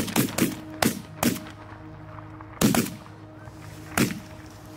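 Shotgun blasts from several hunters shooting at geese overhead: a quick volley of about five shots in the first second and a half, then two more spaced shots. A steady music bed runs under the shots.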